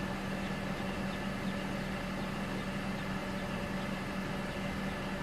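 Mercedes C230 Kompressor's supercharged four-cylinder engine idling steadily.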